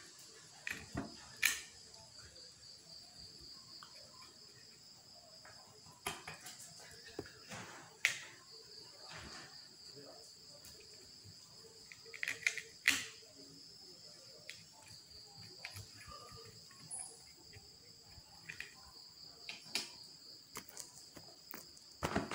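Crickets chirring steadily in a high, even band, with scattered light clicks and taps from a paintbrush dabbing paint onto pumpkin seeds glued to a board.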